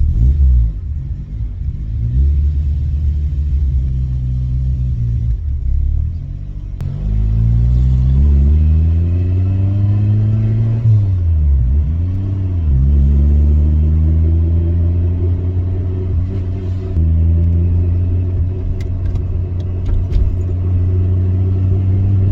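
Honda B16A 1.6-litre DOHC VTEC four-cylinder engine pulling hard through the gears under acceleration. Its note climbs steadily in pitch, drops sharply at each of several gear changes, then climbs again.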